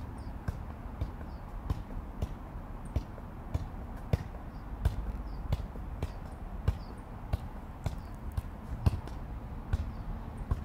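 Soccer ball being juggled with the feet: a regular thud as the ball comes off the foot, a little under twice a second.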